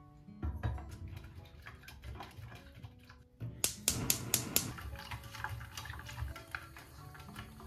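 Gas hob's spark igniter clicking rapidly, about six clicks in a second, as the burner is lit. Then a wire whisk stirring in a saucepan, with light scraping ticks.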